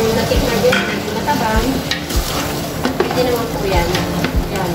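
Food sizzling in a hot frying pan while being stirred, with irregular scrapes and taps of the spatula against the pan.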